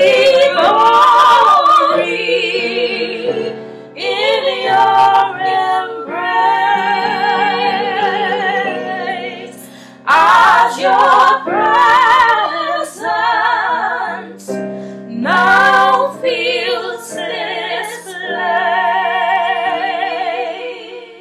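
A woman singing a slow worship song with vibrato, in phrases, accompanying herself with held chords on an electronic keyboard.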